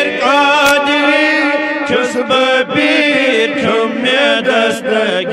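Men's voices chanting a Kashmiri Sufi devotional hymn together, holding long, wavering melodic notes between the lines of its refrain to Alamdar.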